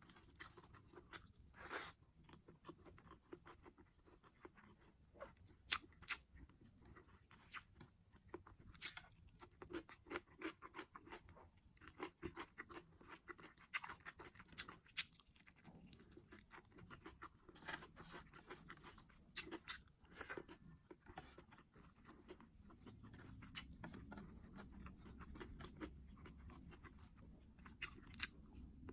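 Close-miked chewing of food, with irregular crunches and small sharp mouth clicks coming every second or so.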